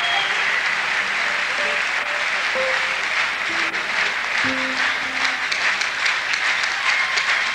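Live concert audience applauding, with the stage ensemble's instruments playing a few scattered notes beneath the clapping.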